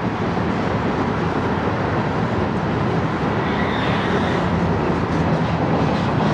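Freight train's covered hopper cars rolling past: a steady noise of steel wheels on rail, with a faint high squeal about three and a half seconds in.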